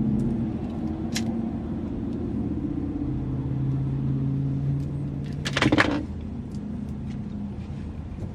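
Low, steady vehicle rumble with a humming drone, broken by a short loud burst of noise about five and a half seconds in.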